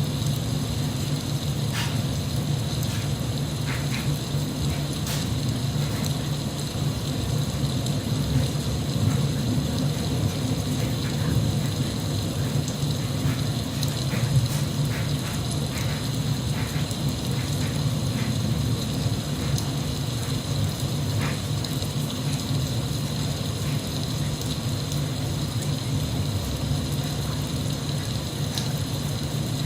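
Steady rain, a continuous hiss and low rumble with scattered sharp drop taps and clicks.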